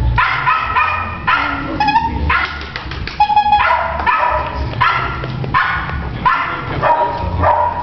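A dog barking over and over, roughly a bark every two-thirds of a second.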